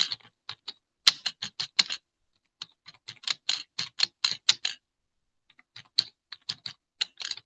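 Rapid short tapping strokes of writing on a board, several a second, in three runs with two brief pauses.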